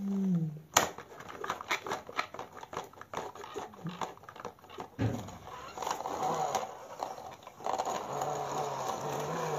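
Rapid, irregular clicks and taps of a hand handling a plastic toy dump truck, followed after a few seconds by a softer rustling with low wavering tones.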